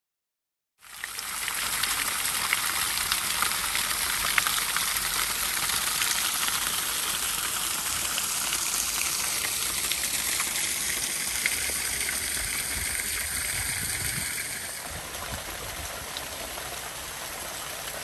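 Spring water running and splashing down a narrow mossy stone channel, a steady rushing hiss that starts about a second in and gets a little quieter for the last few seconds.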